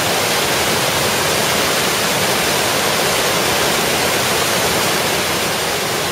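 Fast, turbulent river water rushing through the open gates of a canal intake structure: a loud, steady roar of churning white water.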